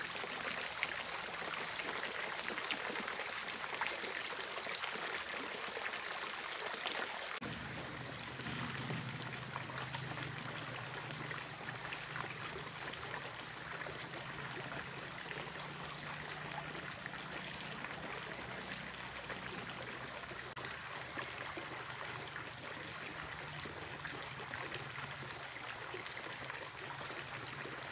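Shallow mountain stream running and trickling over rocks, a steady even wash of water. About seven seconds in a low steady hum joins it.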